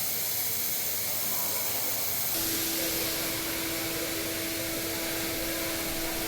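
Steady hissing background noise. A little over two seconds in, the sound changes abruptly and a steady low hum joins the hiss.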